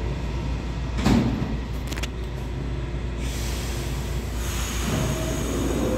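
New York City Subway R211T car's doors closing, with a loud knock about a second in and a smaller one at two seconds, then the train starting to pull out: a hiss builds from about three seconds and a steady high whine from its propulsion comes in near the end.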